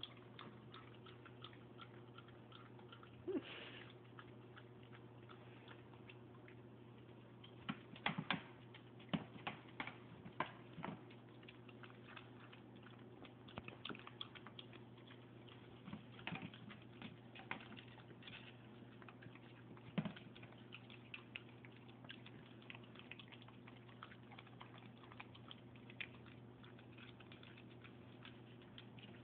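A dog eating peanut butter, licking and smacking at it on a plate: irregular small wet clicks and smacks, coming in bunches, over a faint steady hum.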